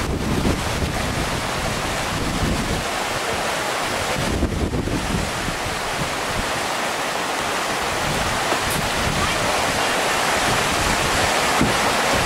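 Whitewater rapids rushing steadily, a dense even wash of noise, with wind rumbling on the microphone.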